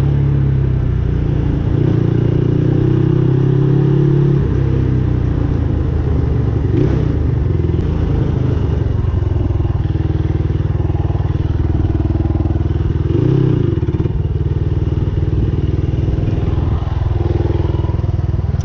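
Adly Hurricane 500 quad's engine running steadily under way, with the revs dropping about four seconds in and rising briefly around thirteen seconds.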